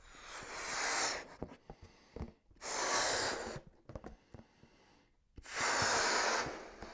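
A person blowing up a rubber balloon: three long, forceful breaths into it, each about a second, with short pauses between.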